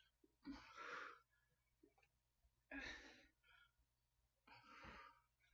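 A woman's heavy breathing under exertion mid-set: three forceful exhalations, about two seconds apart.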